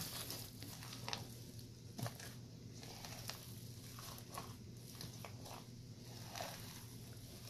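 A gloved hand kneading and mixing a thick, greasy black ointment of lard and vaseline in a glazed clay bowl: faint sticky squelches and small smacks at irregular moments.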